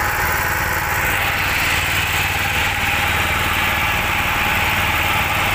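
Engine of a small outrigger fishing boat running steadily under way, with water rushing and splashing past the hull and outrigger.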